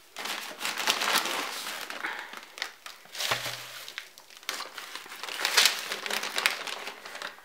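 Plastic bag of potting soil crinkling and rustling as it is handled, on and off.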